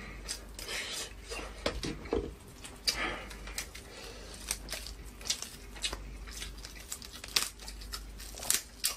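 Swimming crab shell cracking and crunching as it is broken apart by hand and eaten, with many irregular sharp cracks, the loudest near the end, and some chewing.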